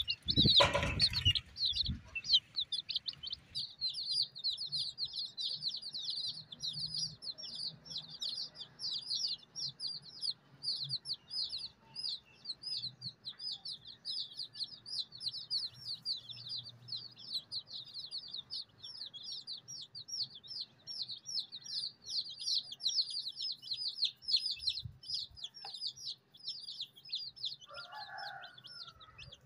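A group of baby chicks peeping nonstop, a dense stream of rapid, high, falling cheeps. A loud bump sounds about a second in, and a brief lower-pitched call comes near the end.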